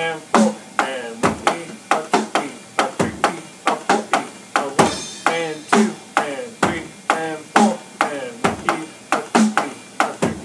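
Electronic drum kit played in a steady beat, with a deeper bass drum every few hits under the snare and cymbal strikes. Each hit is sharp and short with a quick pitch drop as it dies away, about two to three hits a second.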